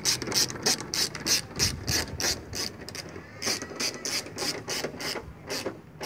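Hand socket ratchet with a 10 mm socket tightening the headlight housing bolt, its pawl clicking about three times a second in quick back-and-forth strokes, with a short pause about halfway.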